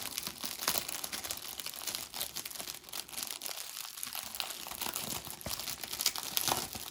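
Thin plastic parts bags crinkling and rustling as model kit parts are handled, a continuous run of irregular crackles.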